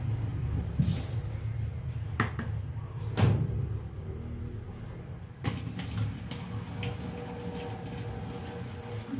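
Dishes being washed by hand in a stainless steel sink: plastic cups and a bottle knock against the sink and other dishes in a handful of sharp clacks, the loudest about three seconds in, over a low steady hum.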